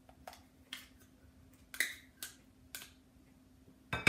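A spoon knocking and scraping margarine out of a measuring cup into a glass bowl of chocolate chips: light separate clicks about half a second apart, then a quick clatter of louder knocks near the end.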